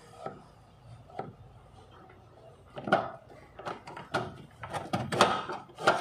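Plastic car pillar trim and seat-belt hardware being handled and pushed into place: a few scattered clicks at first, then a quick run of sharp knocks and clicks from about three seconds in.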